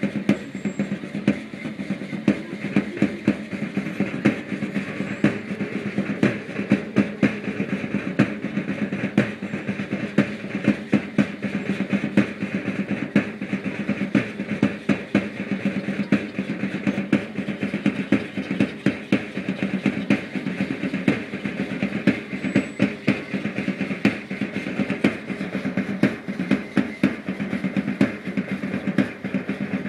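Matachines dance drum beating a steady, even rhythm of about two beats a second, over a constant hiss.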